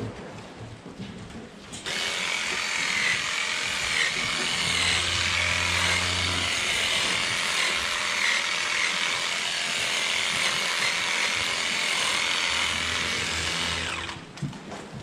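Handheld electric clipper running steadily as it trims the hair of a cow's tail. It switches on about two seconds in and off near the end, its whine wavering slightly in pitch as it cuts.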